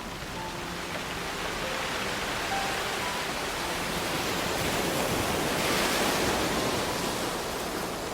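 Ocean surf washing onto a pebble beach, with one wave building to a peak about six seconds in and then easing. Soft, sparse music notes play faintly underneath.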